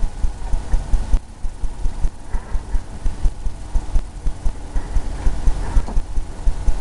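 Brush working paint onto a stretched canvas, making quick, irregular low thumps several times a second, with a faint scratch of bristles now and then.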